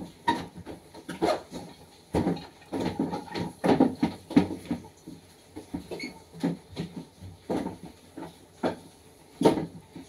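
Irregular knocks and clatters, a dozen or so, as food packets and containers are handled and moved about inside a refrigerator during cleaning.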